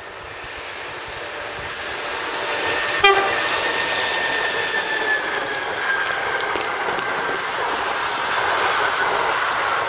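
SNCF Fret electric locomotive hauling a long intermodal freight train of trailer-carrying wagons past on electrified main line. The rolling noise builds as it approaches, with a very short horn toot about three seconds in as the locomotive draws level. After that comes the steady rumble of the passing wagons.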